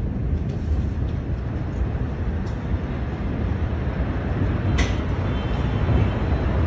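Deep, steady rumble from a massive explosion, heavy on a phone microphone, with a single sharp crack about five seconds in.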